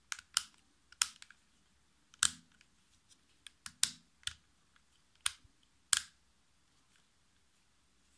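Sharp plastic-and-metal clicks and snaps from handling a cordless hair clipper, its detachable blade head being pressed on and worked by hand. Several separate clicks, some in quick pairs, fall over the first six seconds; the motor is not running.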